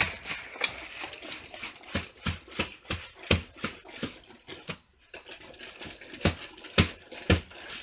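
Plastic barrel filled with tomatoes in brine being shaken and rocked with its lid clamped on: irregular sharp knocks and clunks of the barrel and its contents, the loudest cluster near the end.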